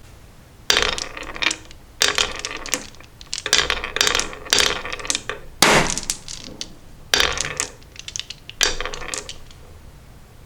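Marbles clattering and rolling down a toy marble run, in about seven bursts of rapid clicks and rattles spaced roughly a second to a second and a half apart.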